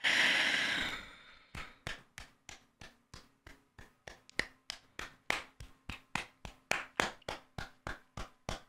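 One person clapping her hands slowly and steadily, about three claps a second, starting about one and a half seconds in. The clapping follows a short rush of noise that fades out in the first second.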